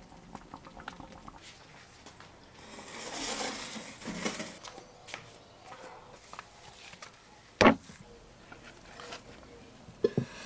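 Handling of a metal baking tray of fish and dishes: scattered light clicks, a swell of noise about three seconds in, one sharp knock just before eight seconds in, and a few light taps near the end.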